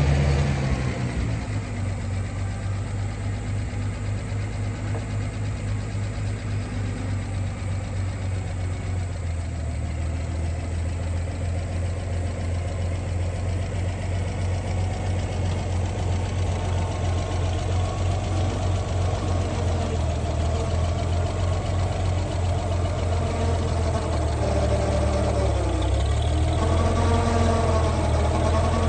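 International 460 Utility tractor engine idling with a steady pulse, settling down from a higher speed in the first second or two and running a little louder near the end.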